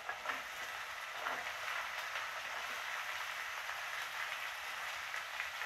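Onions, carrots and green beans sizzling steadily in hot ghee in a pressure cooker, with a few faint clicks near the start as beans drop in.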